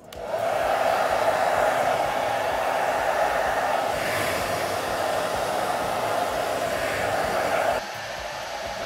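Ionic hair dryer switching on and blowing steadily while drying damp hair. Its level drops noticeably near the end.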